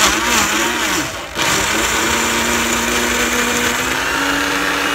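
Black+Decker countertop blender running on pulse, churning frozen berries: a short break about a second in, then a longer steady run, its motor pitch wavering at first and then holding. Only the pulse setting is working and the mix is too thick, short of liquid.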